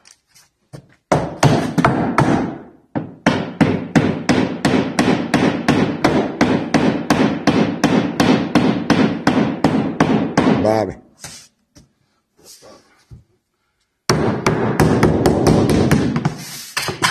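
Hammer rapidly tapping a sheet of lauan plywood underlayment down onto a glued wooden step, about four or five even blows a second. It stops for a few seconds near the middle, then starts again.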